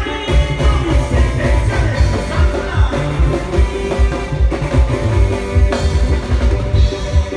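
A live Mexican band playing loud: a drum kit and bass keep a steady, regular beat under keyboard and other instruments, with only a little singing.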